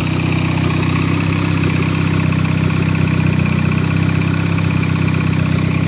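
Turbocharged 2.0-litre Hyundai Tiburón inline-four with forged internals and a Precision 6262 turbo, idling steadily.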